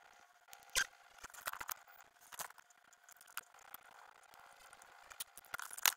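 Plastic clicks and knocks from a handheld digital multimeter being handled in gloved hands as its case is closed up, several sharp clicks among softer rustling.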